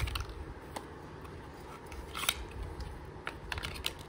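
Handling noises: scattered light clicks and taps as an earbud charging case, its box and paper inserts are picked up and moved about, with a sharper click about two seconds in.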